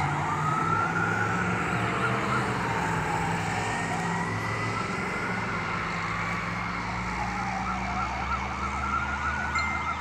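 Fire apparatus sirens responding to a call. A slow wail rises and falls every few seconds, overlapped by a fast yelping siren, over a steady low engine rumble.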